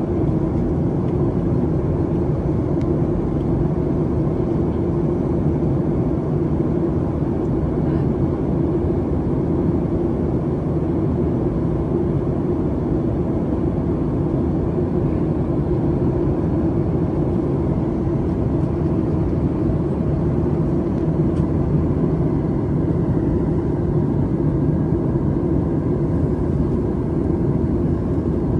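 Steady cabin noise of a Boeing 737 MAX 8 heard from a window seat near the rear: an even rumble of its CFM LEAP-1B jet engines and airflow, with no change in level.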